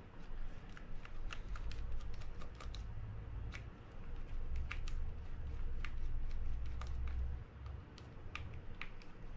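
Irregular small clicks and taps of a mini screwdriver working the side-housing screws of a Shimano Baitrunner 6500B spinning reel, over a low handling rumble.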